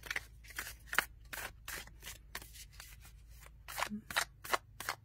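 Overhand shuffle of a tarot deck with thin, matte cardstock: small packets of cards slide off and drop from hand to hand in short, soft swishes, about two to three a second.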